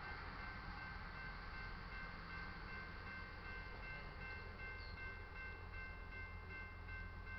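Railroad crossing warning bell ringing as the crossing signals activate: a fast, even, repeating ding of high ringing tones.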